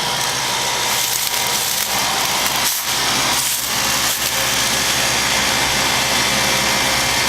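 1989 Lennox heat pump's outdoor unit running in cooling mode: the condenser fan blows with a steady rush of air over the compressor's low, even hum.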